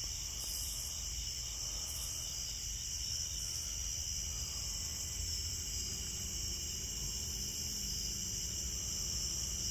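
Night insect chorus of crickets and other insects: a steady high-pitched trill that never lets up, with short, higher buzzes coming in every second or two.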